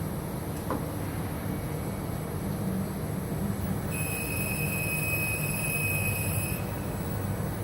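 SAFAN CNCL K CNC press brake running with a steady low hum. From about four seconds in, a steady high-pitched tone sounds for nearly three seconds, and a faint click comes about a second in.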